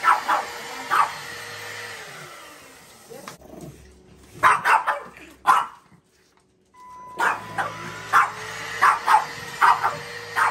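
Small dog barking sharply in short bursts at a cordless stick vacuum. The vacuum's motor hum winds down about two seconds in, then spins back up to a steady hum about seven seconds in.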